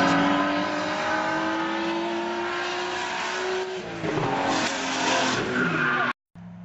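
Motor vehicle engine held at high revs, its pitch climbing slowly, then tyres skidding about four and a half seconds in. The sound cuts off abruptly about six seconds in, and a brief, fainter engine hum follows.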